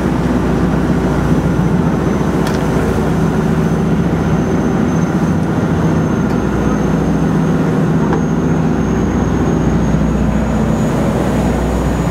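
Fishing boat's engines running steadily at speed, a constant low drone under the rush of the wake and wind. A faint, steady high whine runs through it.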